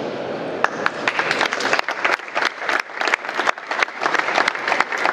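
Audience applauding: many hands clapping, picking up about half a second in and carrying on.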